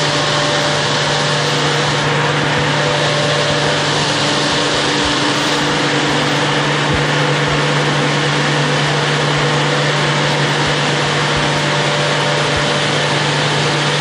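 Pool water-treatment plant machinery running steadily: a constant low hum under an even hiss.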